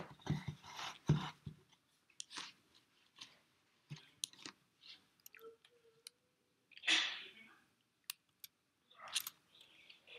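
Scattered soft clicks and rustles of small handling noises, with a longer rush of noise about seven seconds in.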